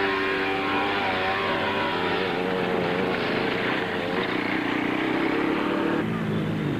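Quad (ATV) engines running, their pitch wavering up and down as the riders work the throttle through the sand. The engine note changes abruptly about six seconds in.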